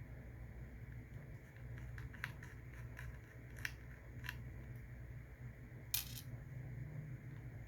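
Scattered light clicks and taps of small hard parts being handled during laptop disassembly, with a sharper click about six seconds in, over a low steady hum.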